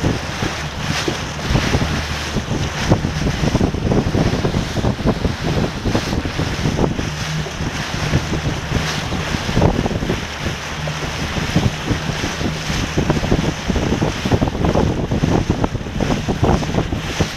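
Wind buffeting the microphone over the rush and splash of water around a small sailing boat under way, in a continuous, gusty roar.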